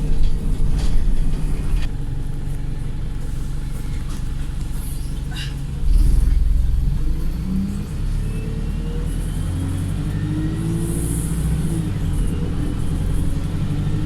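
Wright StreetLite single-deck bus running hard, heard from on board: a steady low engine drone. About six seconds in it suddenly gets louder and deeper, then its pitch climbs slowly as the bus picks up speed.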